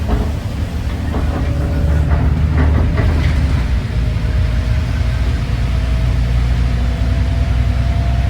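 Road traffic passing close by: a deep, steady engine rumble from a heavy vehicle, with a faint whine slowly rising in pitch over the second half. A few light knocks come in the first three seconds.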